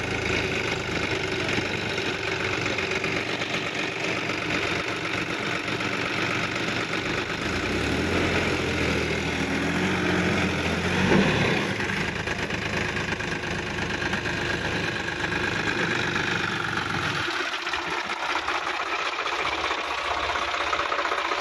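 Sonalika DI-50 RX tractor's diesel engine running as the tractor works through deep mud, with a brief rise in engine pitch and loudness about halfway through. The deep rumble thins out in the last few seconds.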